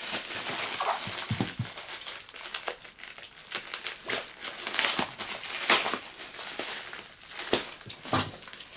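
Packaging crinkling and rustling, with scattered light clicks and knocks, as a Gundam plastic model kit is unboxed and its contents handled.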